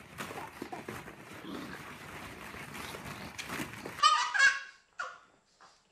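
Plastic ball-pit balls rustling and clattering as a toddler and a pug move among them. About four seconds in comes a loud, shrill, honking squeal, twice in quick succession, with a shorter call just after.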